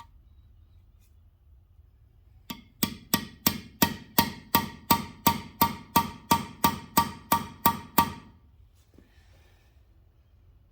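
Hammer striking a steel tool against the cast-iron block: about sixteen even, ringing metallic taps, roughly three a second, that start a couple of seconds in and stop about two seconds before the end.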